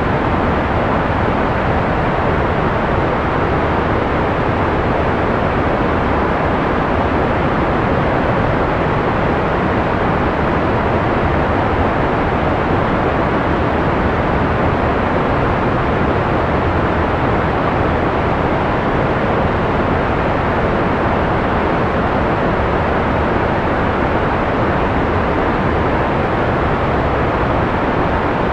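Steady synthetic white-noise hiss with the highs rolled off above a few kHz, giving a soft, dull rushing sound with no change throughout.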